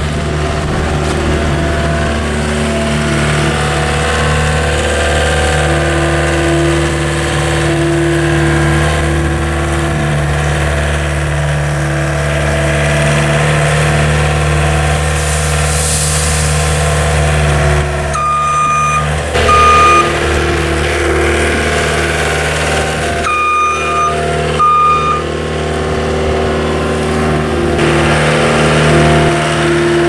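John Deere 320 skid steer's diesel engine running steadily as the loader carries and lifts a bucket of cob corn. A little past halfway its backup alarm beeps twice, then twice more a few seconds later.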